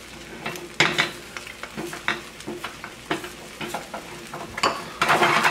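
Beaten eggs frying in a nonstick pan while a spatula scrapes and pushes them around in short, repeated strokes. The scraping grows louder about five seconds in.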